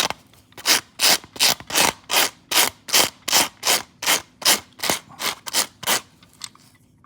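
The wire pins of a retractable-pin slicker dog brush raked again and again across the hook side of Velcro, a quick rasping stroke roughly every 0.4 s, pulling out the dog hair and lint that clog the hooks. The strokes grow fainter and stop near the end.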